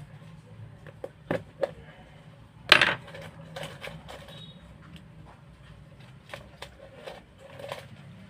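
Small metal repair tools clicking and tapping against a phone's internal parts while the charging jack is worked loose: a few sharp clicks, the loudest a little under three seconds in, then lighter scattered ticks.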